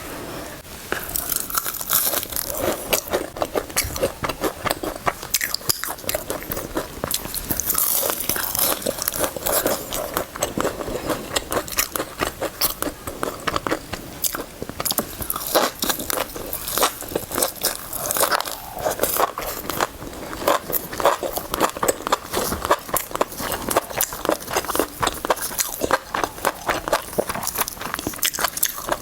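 Close-miked eating sounds: biting into and chewing fried cabbage, with a steady run of crisp crunches, crackles and wet mouth clicks.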